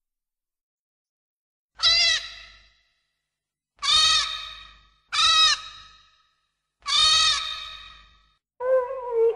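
Minilla's monster-cry sound effect: four high calls, each rising then falling in pitch, then a lower call ending on a held note.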